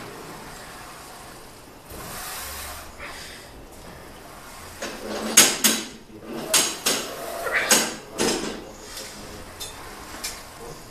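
Metal gym equipment clanking and rattling: a cluster of sharp metallic clanks in the middle, with a few lighter clinks around it.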